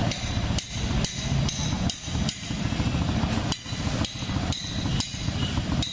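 Small petrol engine of a material hoist running steadily, with sharp knocks about twice a second.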